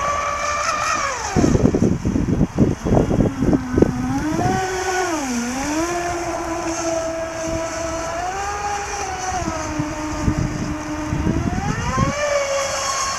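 Leopard 4072 brushless motor of an RC speedboat running at speed: a high whine that rises and falls in pitch as the throttle changes. Choppy low rumbling cuts in from about one and a half to four seconds in and again near the end.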